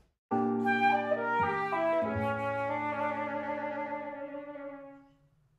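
A short phrase of flute music over a low sustained accompaniment, starting abruptly, moving through a few quick notes and ending on a long held note that fades away.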